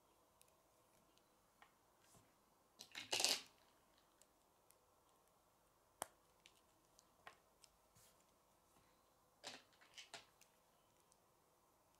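Plastic K'nex pieces being handled and snapped together: scattered small clicks, with a louder clatter about three seconds in and a few more clicks around ten seconds.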